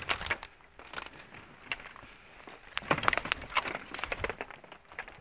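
Footsteps crunching through dry leaf litter and cut brush, with twigs snapping underfoot in irregular clusters of crackles.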